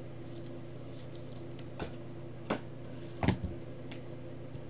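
A clear plastic toploader card holder handled and set down: four short plastic clicks and taps, the loudest about three seconds in, over a steady low hum.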